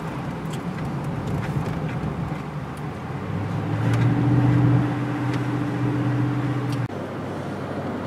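A car driving, with steady road noise heard from inside the cabin. A low engine hum swells louder a few seconds in and then cuts off suddenly near the end.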